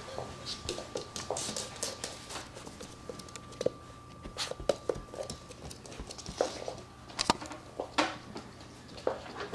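Irregular light clicks and taps of a doodle puppy's paws and claws on a hard floor as it moves about.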